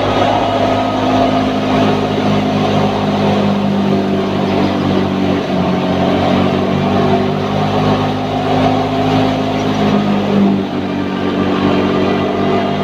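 Wheat thresher running steadily under load, a continuous mechanical drone with a constant low pitch and no change in speed.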